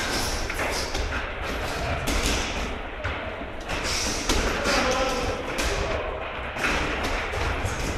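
Irregular thumps of kicks and punches landing on hand-held strike shields and hanging punching bags in a large gym hall.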